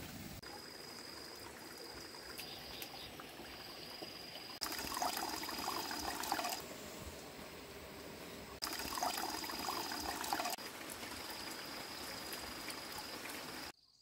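Stream water running steadily, with a thin high insect whine that comes and goes. Two louder stretches of a couple of seconds each rise over it.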